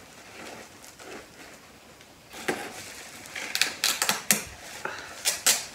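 Handling noise from a potted hoya being lifted and turned: after a quiet start, a run of irregular sharp clicks and crinkly rustles, thickest near the end.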